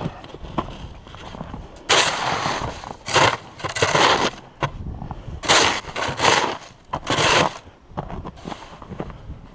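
Snow shovel scraping and pushing heavy snow off a roof, in about six rough bursts a second or so apart.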